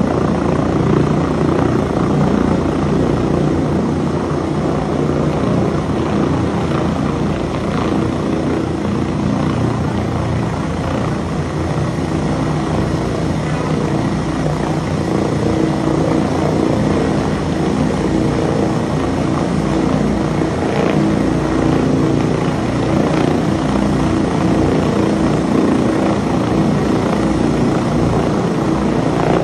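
Air ambulance helicopter hovering low, its rotor beating in a fast, steady chop over a constant engine hum.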